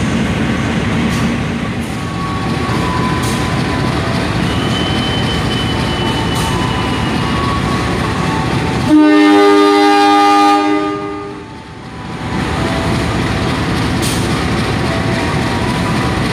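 Diesel-electric locomotive running steadily at the head of a passenger train, sounding one chord-like horn blast about a second and a half long about nine seconds in.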